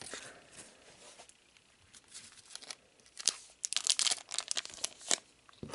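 Booster pack wrapper being torn open and crinkled: faint handling at first, then a run of sharp crackling rips about two seconds in that goes on for roughly three seconds.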